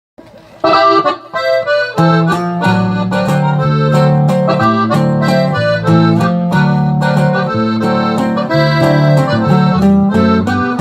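Accordion playing the instrumental introduction of a ranchera song, its melody entering about half a second in, with a lower rhythmic accompaniment joining about two seconds in.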